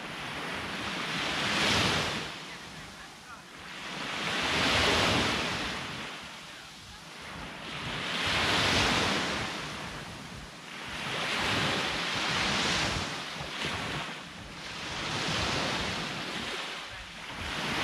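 Sea waves breaking and washing up the shore, swelling and fading about every three to four seconds, with wind buffeting the microphone.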